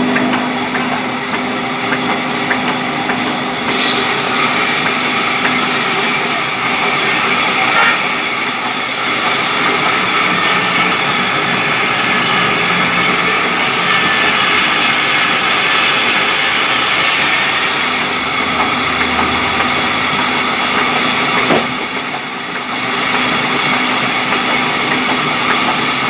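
Large sawmill band saw running and cutting through a mahogany log, a loud steady saw noise. The cutting is sharpest over the middle and eases off about two-thirds of the way through, as the cut finishes.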